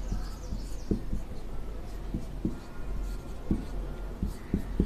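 Marker pen writing on a board: a string of short, irregular taps and strokes as letters and bond lines are drawn, over a steady low hum.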